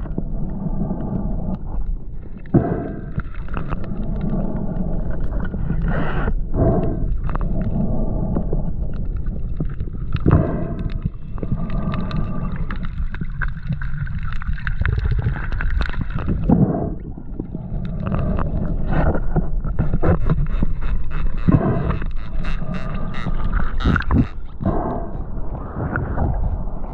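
An engine running steadily, with wind noise and scattered sharp knocks over it.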